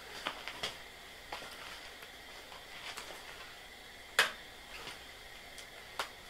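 Scattered light clicks and taps of tools being handled, with one sharp click about four seconds in as a cordless drill is picked up; the drill does not run.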